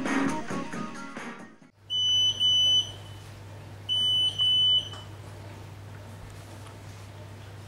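A brief burst of music, then an oven timer beeping: two pairs of short high beeps about two seconds apart, signalling that the cooking time is up, over a steady low hum.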